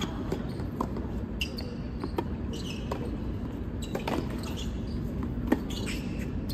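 Scattered knocks and thuds at irregular intervals, the sharpest about five and a half seconds in, with a few short high-pitched sounds over a steady low hum.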